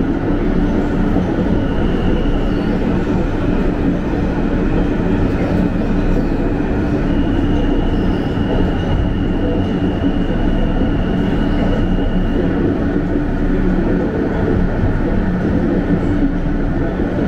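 Interior of an R160 subway car running at speed: a steady rumble of wheels on rail with a steady motor hum. A thin high tone comes in briefly near the start and again for about five seconds in the middle.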